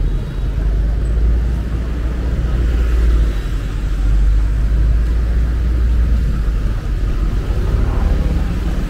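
City street traffic: motor vehicles passing with a continuous engine and tyre noise and a steady low rumble that eases near the end.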